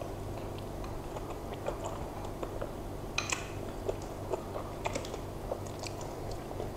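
Metal spoons clicking and scraping against ceramic bowls, with the mouth sounds of eating meatballs. These come as scattered small clicks, a few sharper ones in the middle, over a steady low hum.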